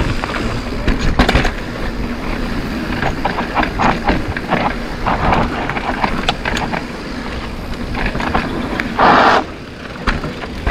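Electric mountain bike rolling fast down a dirt singletrack: steady tyre and wind noise with frequent rattling knocks from the bike over bumps, and a brief louder rush about nine seconds in.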